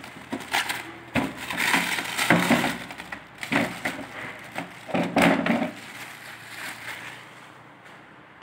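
Clear plastic wrapping crinkling and crackling as it is pulled off a flexible gorilla tripod, in a string of bursts over the first six seconds, then quieter.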